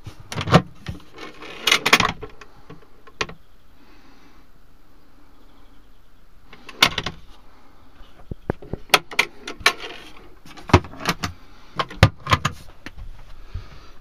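Motorhome cupboard drawers and doors being handled: a run of sharp knocks and clicks, a few early on and a dense string in the last third.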